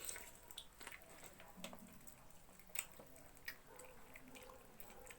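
Faint close-up eating sounds: wet chewing and small smacking clicks, scattered irregularly, of someone eating pork trotters.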